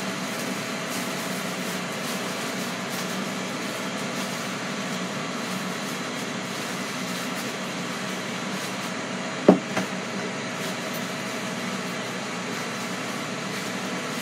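A steady mechanical hum runs throughout, with one short sharp knock about nine and a half seconds in.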